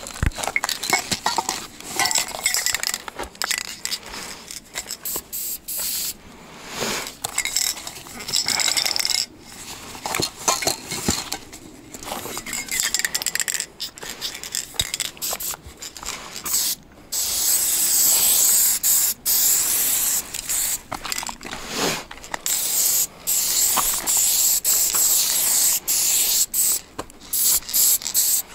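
Aerosol spray-paint cans clinking and knocking as they are handled, then from a little past halfway the long hiss of a can spraying paint onto a wall, broken by short pauses.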